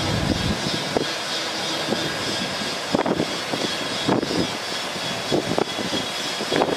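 Bucket truck's Cummins 6.7L ISB diesel engine running with the PTO engaged, driving the hydraulics as the Altec boom lifts. A deep low rumble drops away about half a second in, leaving a steady mechanical noise with irregular short knocks.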